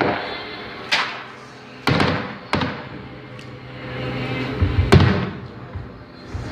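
Fireworks going off: about four sharp bangs, each trailing off in a rumbling echo, the loudest about five seconds in.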